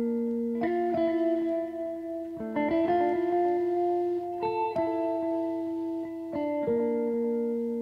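Background music: a plucked-string melody of sustained notes, changing every second or so.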